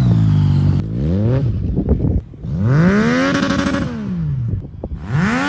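Yamaha MT-09 motorcycle engine revving in repeated swells, its pitch rising and falling: a short blip about a second in, a longer rev peaking around three seconds, and another climbing near the end.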